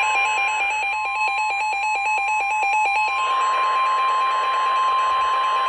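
NOAA Weather Radio's steady 1050 Hz warning alarm tone, signalling an incoming severe thunderstorm warning, over radio static. A second electronic alarm beeps in a stepping, alternating pattern on top and stutters rapidly from about one to three seconds in.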